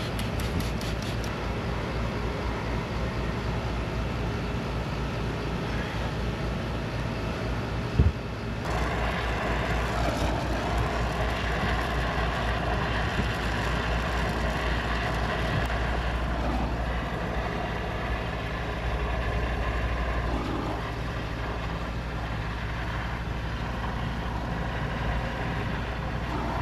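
Brazing torch burning steadily on copper refrigerant line joints, with a sharp snap about eight seconds in, after which the flame noise is louder.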